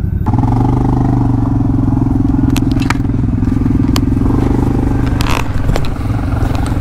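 ATV engine running steadily at a fixed speed, stepping up in level just after the start, with a few sharp clicks and scrapes over it.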